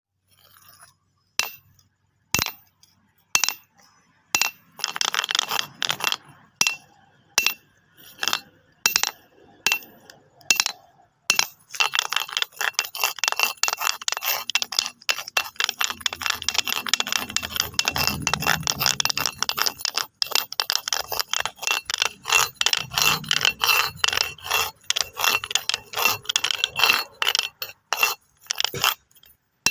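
Stones knocking together: single sharp clacks about once a second, then from about eleven seconds in a dense, continuous clattering of stones rubbing and clicking, thinning back to separate clacks near the end.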